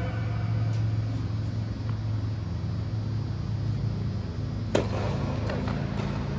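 Steady low hum of an indoor tennis hall's machinery. Nearly five seconds in comes one sharp tennis-ball hit, followed by a few lighter bounces.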